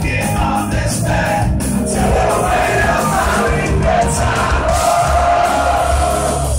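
Rock band playing live, with guitars, drums and sung vocals, heard loud from within the audience, the crowd yelling along.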